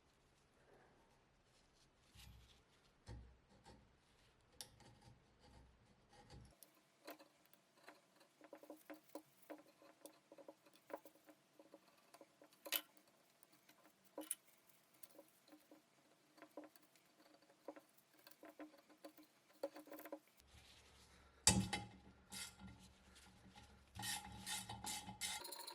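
Faint, scattered clicks and taps of tools and small metal parts being handled, growing louder and busier near the end.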